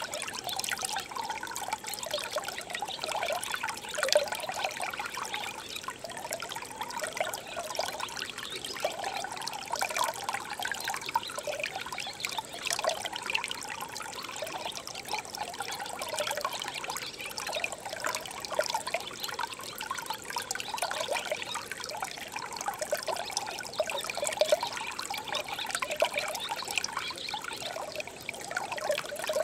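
Shallow stream water trickling and babbling over stones: a steady flow made of many small overlapping gurgles.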